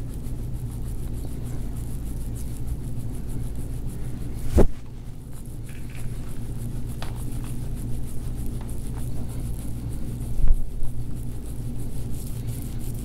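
A steady low hum, with one sharp click about four and a half seconds in and a dull thump around ten and a half seconds.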